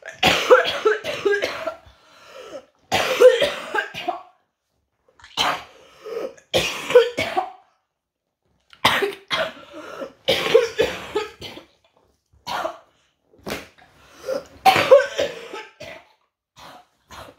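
A woman coughing in a long fit: about a dozen bouts of harsh, throaty coughs, with short silences between them. The cough comes from illness and a sore throat.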